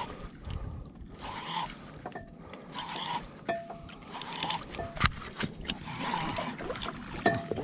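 Sounds aboard a small fishing boat: a soft swish that comes back about every second and a half, like water slapping the hull, with a few sharp knocks.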